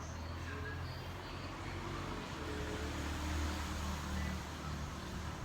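Low, steady engine rumble of a motor vehicle running nearby, swelling slightly midway.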